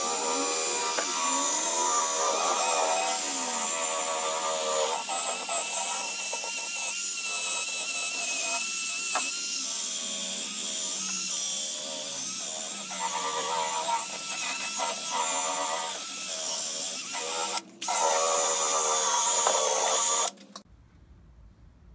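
Cordless drill spinning a foam polishing cone against a bare aluminum snowmobile tunnel, buffing out metal polish at speed. The motor's whine rises and falls in pitch as the trigger speed changes, and it cuts off suddenly near the end.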